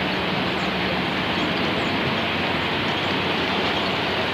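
Steady rumble and hiss of a moving vehicle, even throughout with a faint low hum under it.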